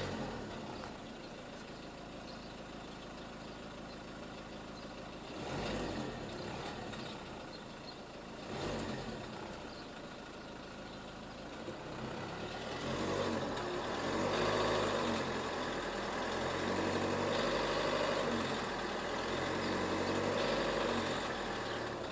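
Renault Megane 2's 1.5 dCi four-cylinder turbodiesel running with a metallic knock in the engine. The engine gets louder briefly twice, then stays louder through most of the second half.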